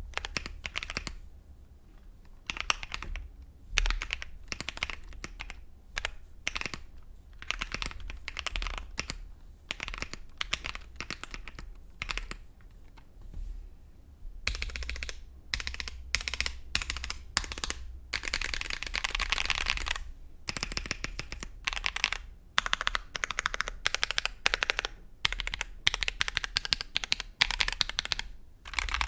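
Typing on a mechanical keyboard fitted with Akko CS Lavender Purple tactile switches in a GMMK Pro with a polycarbonate plate and foam: fast runs of high-pitched keystroke clacks with short pauses between them, thickest in the second half.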